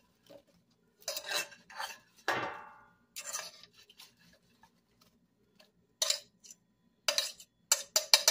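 Brussels sprouts and potatoes being tossed around in a metal pot: short bursts of clattering and scraping against the pot, with one ringing knock on the pot about two seconds in and a quick run of clatters near the end.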